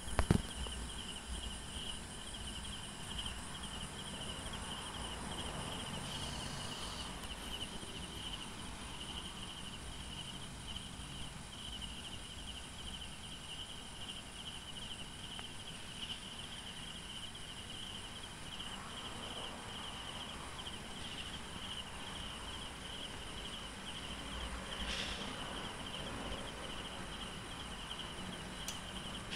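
Night insects trilling steadily in a fast pulsing chirr, over a faint low rumble.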